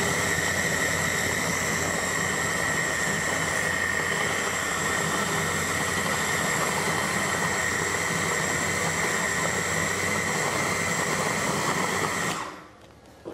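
Electric blender's motor running steadily at speed, its blade whipping thick raw honey, with a steady high-pitched whine; it shuts off near the end.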